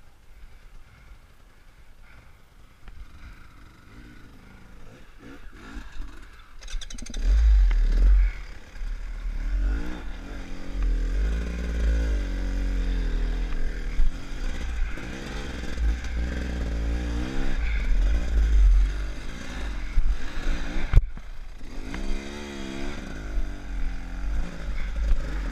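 Enduro dirt bike engine, faint for the first few seconds, then from about seven seconds in revving up and down in pitch as the bike works over rough rocky ground, with a heavy low rumble of buffeting and a sharp knock about twenty seconds in.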